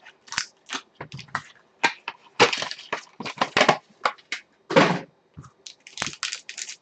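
A trading-card box and its foil pack being handled and opened by hand: a string of short, sharp crackles and crinkles of foil wrapper and card stock, busiest in the middle of the stretch.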